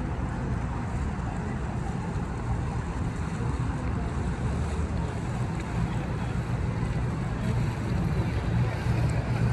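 Steady low rumble and hiss of outdoor city ambience by the river, growing slightly louder near the end.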